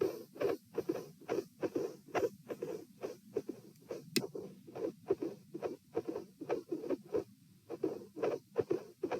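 Heartbeat heard through a stethoscope at the pulmonic listening position: steady paired lub-dub sounds, about one pair a second (66–72 beats a minute), from a heart with a dilated aortic root. A single sharp click about four seconds in.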